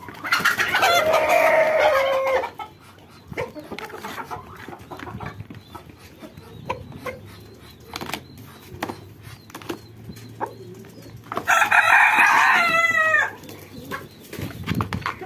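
A rooster crowing twice, each crow about two seconds long, the first at the start and the second about eleven seconds in. Between the crows, softer clucking and the clicks of the flock pecking feed from a plastic bowl.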